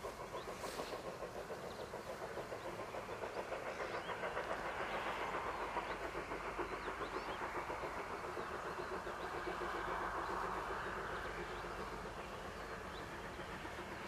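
Steam locomotive working under steam, its exhaust beats coming in a fast, even rhythm. The sound swells towards the middle and eases a little near the end.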